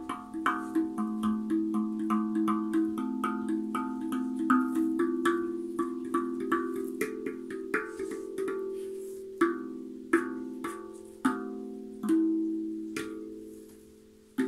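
Guda Freezbee steel drum played with the fingertips: a melody of struck, bell-like ringing notes, quick at first, then slowing after about nine seconds to single notes left to ring out and fade.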